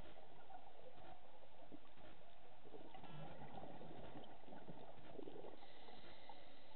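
Muffled underwater noise from a scuba diver's regulator breathing: a brief buzzing rattle about three seconds in and a bubbly gurgle of exhaled air a couple of seconds later.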